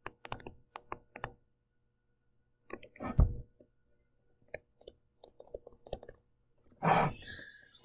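Light clicks and taps of a stylus on a pen tablet during handwriting, in short clusters, with one louder thump about three seconds in and a short hiss near the end.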